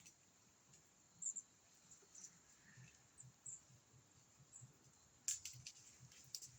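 Near silence: faint scattered clicks and short high chirps, with a brief cluster of sharp clicks about five seconds in.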